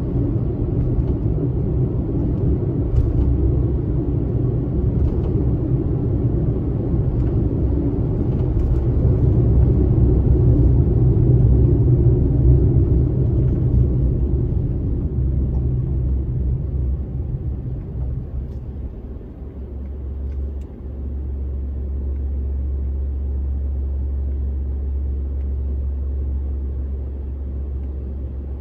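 Road noise heard from inside a moving car: a low, even rumble of tyres and engine. About two-thirds of the way in it fades, leaving a steady low hum.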